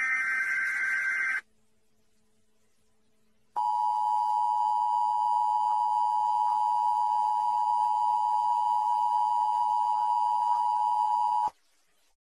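Electronic signal tones: a short hissy beep lasting about a second and a half, then a two-second gap, then one long steady electronic tone for about eight seconds that cuts off sharply.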